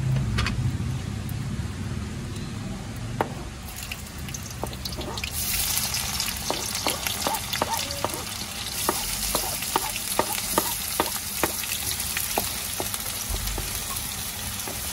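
Chopped onions frying in hot oil in an aluminium kadai: the sizzle jumps up about five seconds in as they go into the pan. A metal spoon scrapes and taps against the board and the pan many times while they are stirred.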